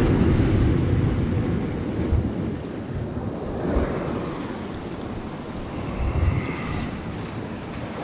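Sea waves washing on a rocky shore, with wind gusting on the microphone.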